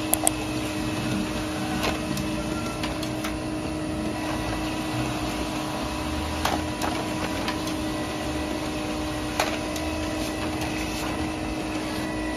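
Desktop printer running as it feeds and prints a sheet of paper: a steady whirring hum broken by a few sharp clicks.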